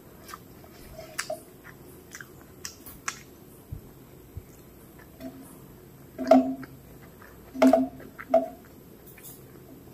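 Close-up eating sounds of a hand-eaten rice and curry meal: chewing with small wet mouth clicks, and a few louder squishy sounds between about six and eight and a half seconds in.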